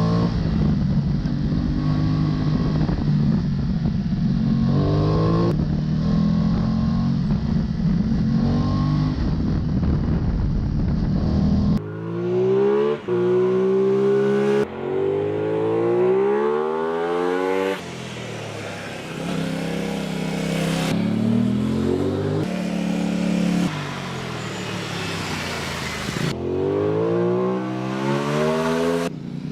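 Aprilia Tuono 660's 659 cc parallel-twin engine and exhaust. For about the first twelve seconds it runs steadily, shifting between held engine speeds. Then comes a string of short clips of the engine revving, its pitch rising and falling, with abrupt cuts between them.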